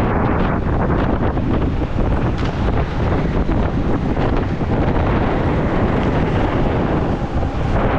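Steady wind buffeting on the microphone of a go-kart at racing speed, mixed with the kart's running noise.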